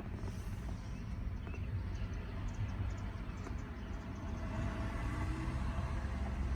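Steady low rumble of a 2008 Chevrolet Avalanche's engine idling, heard from inside the cab.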